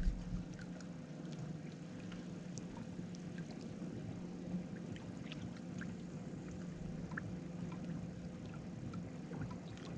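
Steady low hum from a boat's motor, with light water sounds and small scattered ticks.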